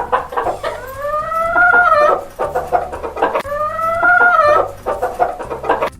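Chickens clucking in quick short calls, with a rooster crowing twice. Each crow is a long call that rises, holds and drops away, one about a second in and another past the middle.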